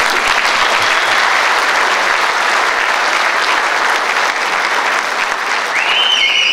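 Audience applauding steadily in a large hall. Near the end a single high whistle rises, holds, and falls away over the clapping.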